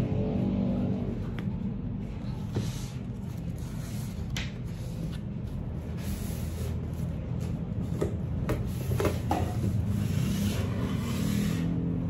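Cardboard packaging being handled: scattered knocks and taps and a few sliding scrapes as a snug outer sleeve is slid off a keyboard box, over quiet background music.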